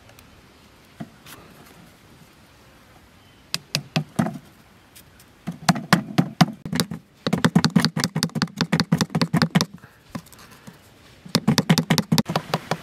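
A thin wooden stick being tapped down into the ground with a hand tool: quick runs of sharp taps, several a second, with short pauses between them, after a few single clicks at the start.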